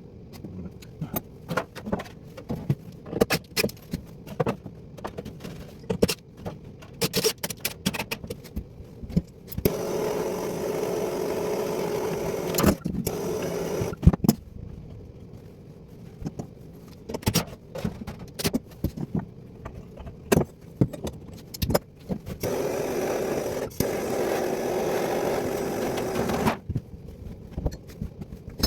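Hands-on plumbing work: repeated clicks, knocks and scrapes of parts being handled, with two steady stretches of about four seconds each of a tool running, one near the middle and one near the end.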